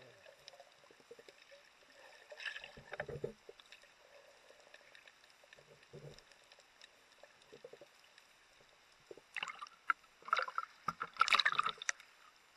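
Water sloshing and gurgling around a handheld waterproof camera, muffled underwater and mostly faint. Louder splashing comes in the last few seconds as the camera reaches the surface.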